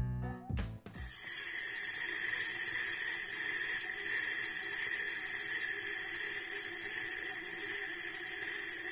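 Music that stops about a second in, then a steady whir from a spinning hamster-wheel capsule toy as its plastic wheel turns on its own.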